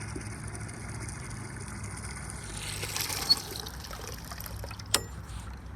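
Water running and trickling steadily over a low steady hum, being drawn for the livestock; a sharp click about five seconds in.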